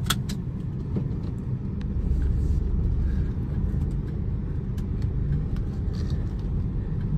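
Car driving, heard from inside the cabin: a steady low engine and road rumble that grows louder about two seconds in as the car is pushed up a slope. A few sharp clicks come at the very start.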